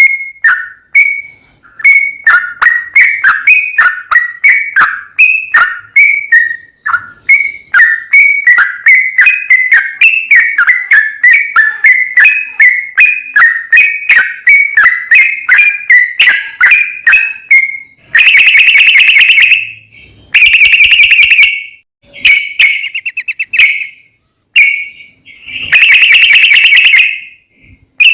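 Yellow-vented bulbul (trucukan) song: a long string of short, bubbly whistled notes at about two to three a second, then, from about 18 seconds in, several loud rapid trilling bursts so loud that the recording clips.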